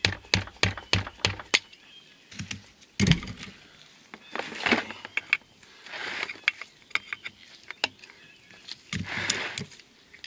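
Flathead screwdriver prying an old axle hub seal out of its steel bore: a quick run of sharp metal taps in the first second and a half, then scattered clicks, a louder knock about three seconds in, and spells of metal scraping as the tool is worked around the seal. The seal is stubborn and fights coming out.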